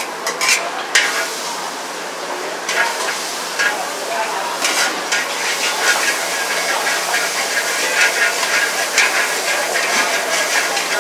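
Flat rice noodles (char koay teow) frying in a hot wok: a steady sizzle, with repeated scraping and clanks of a metal spatula against the wok as they are tossed, more often from about three seconds in.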